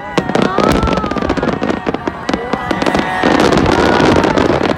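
Fireworks finale: rapid bangs of shells bursting over a dense crackling, building to its loudest and thickest about three seconds in.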